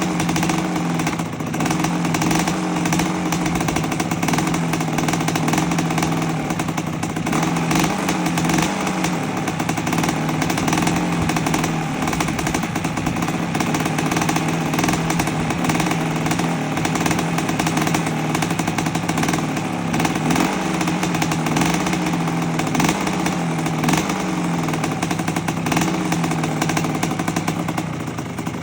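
1984 Honda CR250's single-cylinder two-stroke engine running steadily, its pitch rising and falling slightly now and then. It is being heat-cycled after the rebuild.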